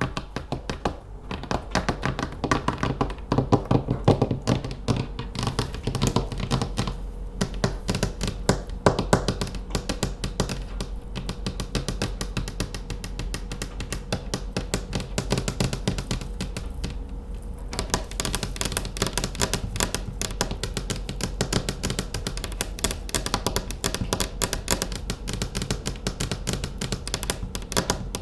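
Rapid, continuous tapping of manicured fingernails, many taps a second, a little softer through the middle.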